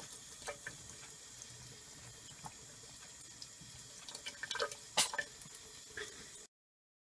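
Washroom sink tap running in a thin, steady stream, with small splashes and clicks from around four seconds in and one sharp click about five seconds in. The sound cuts off suddenly near the end.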